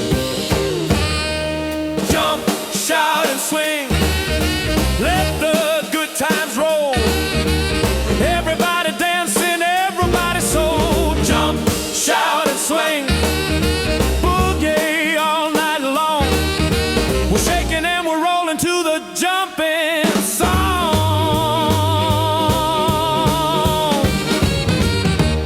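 Up-tempo jump-blues band music in an instrumental stretch: a lead line bends and wavers over a walking bass and drums.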